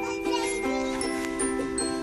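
A music tune of held steady notes with short, high pings laid over them.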